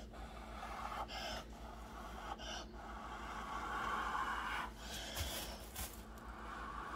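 A person blowing long, airy breaths across wet acrylic pour paint on a tile to push the paint out toward the edges. Several blows are each broken by a quick intake of breath.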